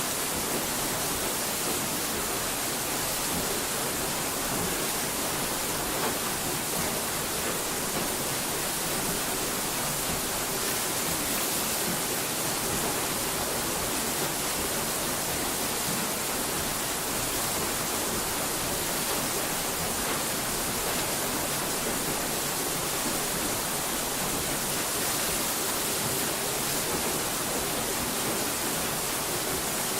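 A steady, even hiss with no pitch or rhythm, brightest in the high end.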